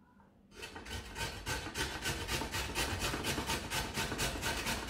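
Raw potato being grated on a metal box grater: quick, even rasping strokes, about four a second, starting about half a second in.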